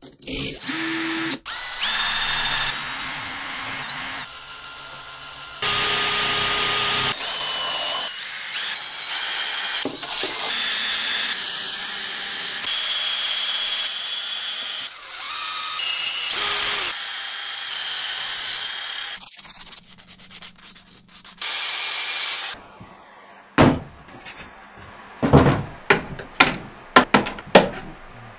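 Small power tools spinning abrasive nylon wheels against wood: a rotary tool and a cordless drill, running with a steady whine that changes pitch and stops and restarts several times. Near the end comes a quick series of short, sharp strokes.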